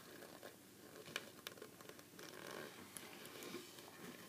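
Faint handling noise of a plastic action figure being bent and posed, with a few small clicks and rubbing sounds.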